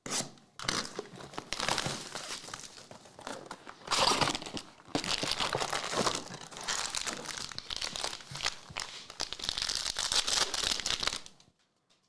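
Crinkly trading card pack wrappers being handled and torn open, a dense run of crackling and tearing that stops about a second before the end.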